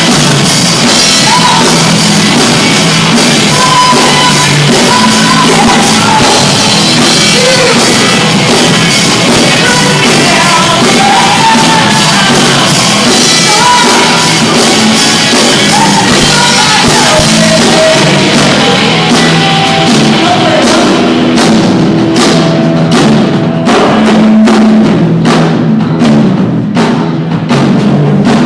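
Live pop-rock band playing with singing and a drum kit, recorded on a phone so the sound is loud and distorted. From about three-quarters of the way in, separate drum hits come through more plainly.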